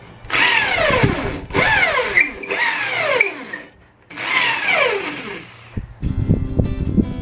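Electric hand drill boring into a wooden tabletop in four short bursts on the trigger, its whine falling in pitch within each burst.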